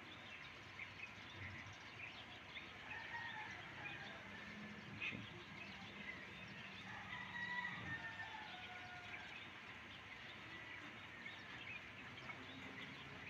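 Quiet early-morning neighbourhood ambience with distant birds chirping and calling, a rooster among them. A faint low hum runs for a few seconds in the middle.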